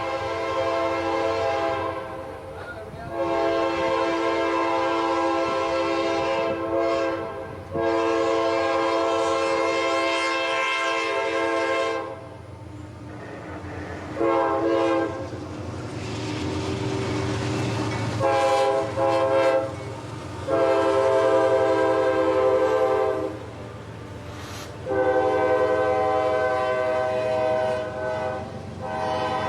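Air horn of a CSX GE AC4400CW freight locomotive sounding a series of long and short blasts, with the low rumble of the locomotive and train passing underneath.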